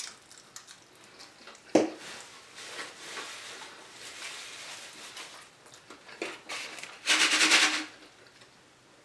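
Close-up eating sounds: a sharp crunch about two seconds in as crispy fried food is bitten, then chewing. Near the end, a loud slurp through a drinking straw that lasts under a second.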